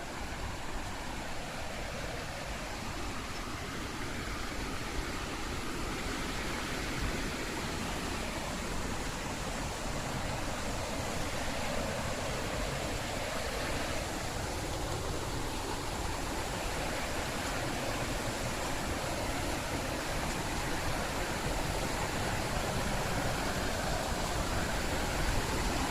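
Rushing white water of rapids or a waterfall: a steady, even rush of noise that slowly grows a little louder.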